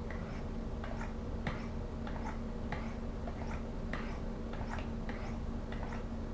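Knife blade being stroked down the ceramic rods of an angled sharpener in short, light strokes, about two to three a second, polishing the edge of a Victorinox pocketknife.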